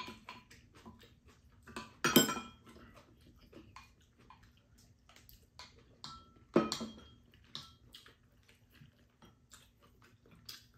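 Spoons and chopsticks clinking and scraping against ceramic bowls during a meal: scattered small taps, some with a short ring, and two louder knocks about two seconds in and again past six seconds.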